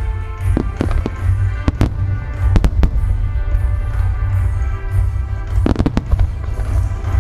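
Aerial firework shells bursting overhead: a continuous deep rumble of booms, with clusters of sharp cracks about a second in, around two to three seconds in, and near six seconds in, over music.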